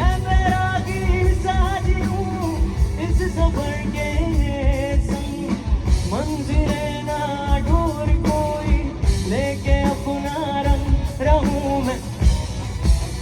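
Live band music: a singer holding long, wavering notes without clear words over drum kit and guitar with a steady beat.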